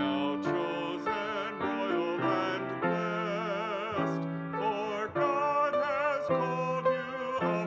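A man singing a hymn with vibrato in long held notes, accompanying himself on piano.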